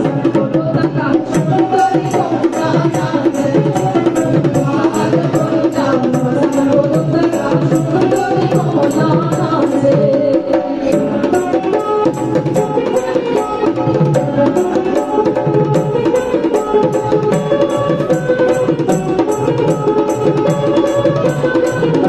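Live folk music: a two-headed barrel drum played by hand keeps a steady rhythm under a plucked banjo. The drumming thins out briefly about ten seconds in.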